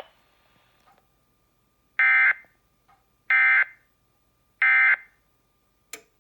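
Emergency Alert System end-of-message signal: three short bursts of SAME digital data tones, a harsh warbling screech, evenly spaced about a second and a quarter apart, closing the Required Monthly Test. A short click follows near the end.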